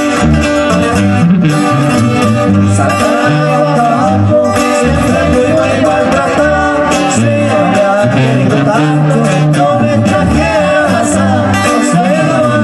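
Live Mexican regional band music: a sousaphone playing the bass line under strummed acoustic guitars, with a man singing.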